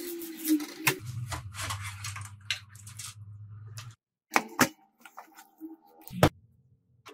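Metal clicks and knocks of a desktop PC power supply unit being handled and set down on a table. There are two sharp knocks a little past the middle and a louder one near the end. A low steady hum runs from about one to four seconds in.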